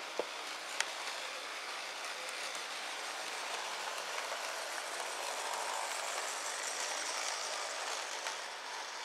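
HO scale model passenger train running past on its track: a steady mechanical whir and rattle of the locomotive's motor and gearing and the wheels on the rails, swelling a little as the cars go by.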